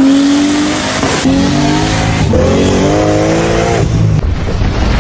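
High-performance car engines revving hard, each climbing in pitch, in three short clips cut together, followed by a rough low rumble near the end.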